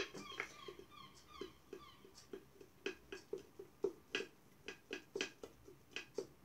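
Sourdough starter freshly fed with flour and warm water being stirred in a glass jar with a thin stick: a regular, faint run of soft wet strokes with light ticks of the stick against the glass, about three or four a second.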